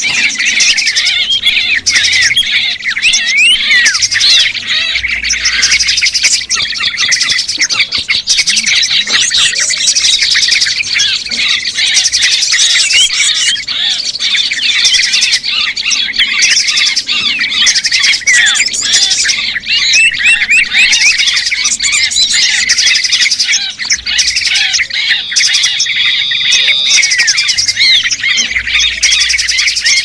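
Dense, unbroken chattering of many small birds: overlapping quick chirps, squeaks and twittering calls, loud and steady throughout, with a short held whistle near the end. It is a noisy small-bird lure call (suara pikat) used to draw small birds in.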